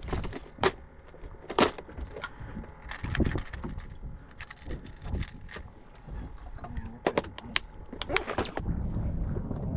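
Irregular sharp clicks and knocks, like gear being handled aboard a small fishing boat, over a low rumble of wind and water that grows a little louder near the end.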